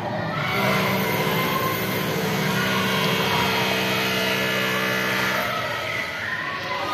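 An engine running steadily at one pitch. Its hum comes in about half a second in and stops about five and a half seconds in.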